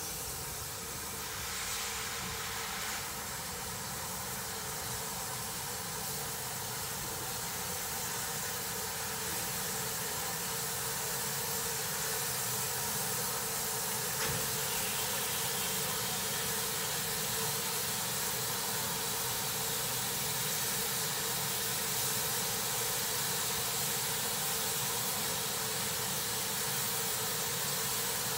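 Steam locomotive drawing slowly up to the platform, giving off a steady hiss of steam that grows gradually louder as it comes closer.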